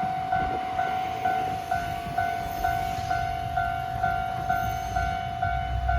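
Japanese level-crossing warning bell ringing, a repeating electronic two-pitch ding about twice a second. Near the end the low engine rumble of an approaching diesel railcar comes in under it.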